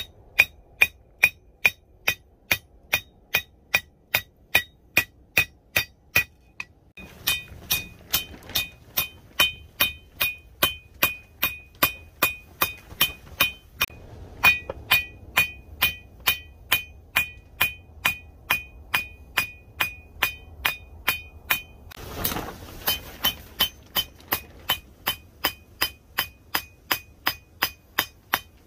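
Ball-peen hammer striking red-hot steel on an anvil, forging a knife blade from a bearing outer race: steady blows at about two a second, each with a high ringing from the anvil, broken by a couple of short pauses.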